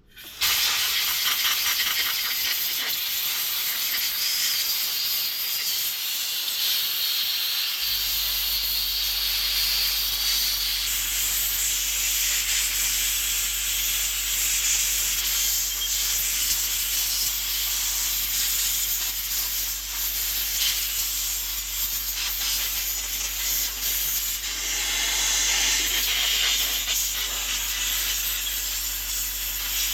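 Steady hiss of air being blown over the variable-frequency drive's circuit board to clean and dry it, starting abruptly. A low steady hum joins about eight seconds in.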